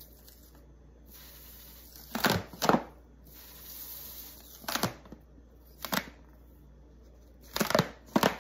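Red rubber balloon with a ball inside being squeezed by hand: the rubber squeaks and creaks in short strokes, a pair about two seconds in, single ones near five and six seconds, and a cluster near the end.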